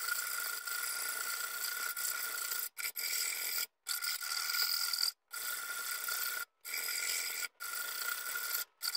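Metal hand file rasping along the beveled edge of a steel lawn mower blade as it is sharpened, in repeated push strokes of about one to two seconds each, with short silent breaks where the file lifts between strokes.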